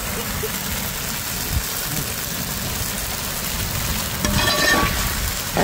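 Steady low rumble with an even hiss from a large aluminium pot of chicken masala cooking on the fire, at the half-cooked stage.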